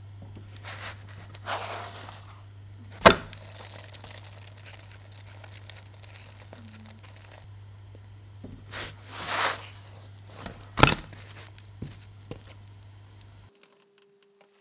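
A spatula scrapes and slides under a flatbread in a nonstick frying pan, followed by a sharp knock as the turned bread and spatula land in the pan. This happens twice, about three seconds in and again about eleven seconds in. A low steady hum runs underneath and cuts off shortly before the end.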